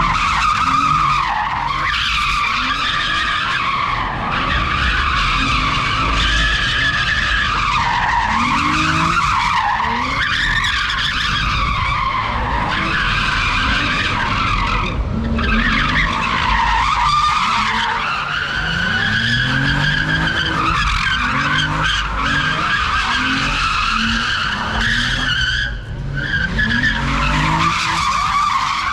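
Infiniti sedan doing donuts: its tires screech almost without a break while the engine revs up again and again underneath. The screech drops out briefly about halfway through and again near the end.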